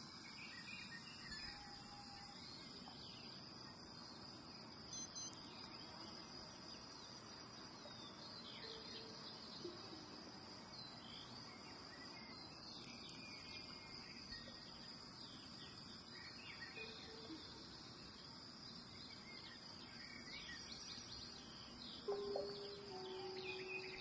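Faint nature-style ambience: a steady, high cricket-like insect drone with scattered bird chirps throughout. A low held tone comes in near the end.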